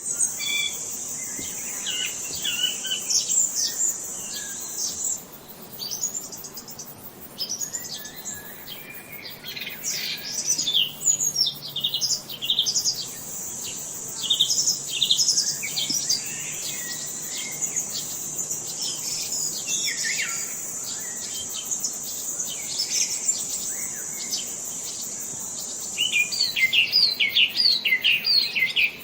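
Several songbirds chirping and singing in quick overlapping calls, with a steady high-pitched buzz under them for long stretches. The calls pick up into a dense, rapid flurry near the end.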